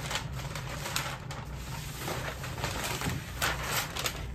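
Brown kraft packing paper rustling and crinkling as a long cardboard rocket body tube is slid out of it, with a few light scrapes and knocks of the tube.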